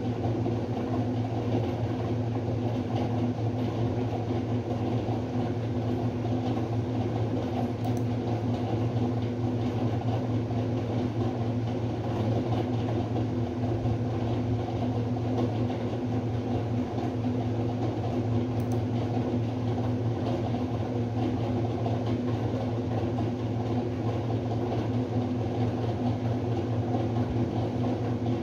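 A steady low hum with a droning pitch, holding the same level throughout without swells or breaks.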